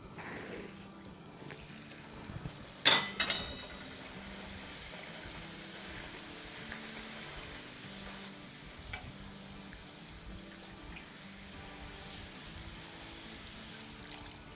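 A stretched puri dropped into hot oil with a sudden loud burst of sizzle about three seconds in, then a steady sizzle as it deep-fries in the frying pan. Faint background music.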